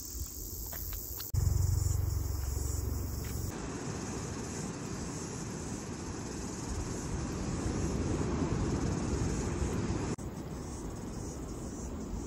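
Wind buffeting the microphone in a low, uneven rumble, with insects chirping steadily in the first second or so. The sound changes abruptly about a second in and again near the end.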